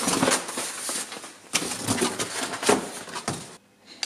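Cardboard box and its cardboard insert rustling and scraping as they are handled, with a few sharper knocks among the rustle; it stops about three and a half seconds in.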